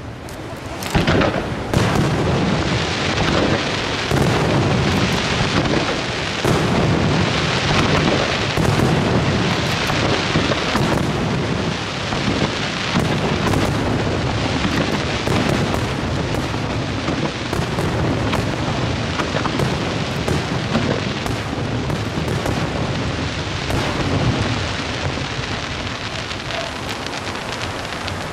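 Aerial fireworks display: a dense, continuous barrage of shells bursting, many sharp bangs over a steady din, thinning out slightly near the end.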